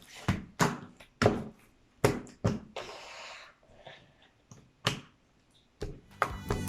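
Sticky homemade borax slime being squeezed and pulled apart in the hands: a string of separate sharp wet pops and squelches as air bubbles in it burst.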